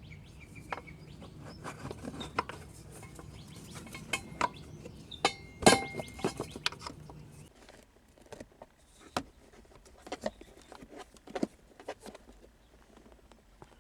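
Hand tools and metal parts clinking and tapping during work on a car's shifter and transmission mounting, with one sharp ringing metal clink about six seconds in.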